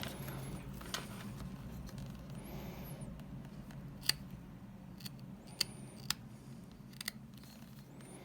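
Stitching threads being cut one by one with a tiny sharp hand blade as a handbag's lining seam is picked open: scattered sharp clicks and snips with faint scraping between them.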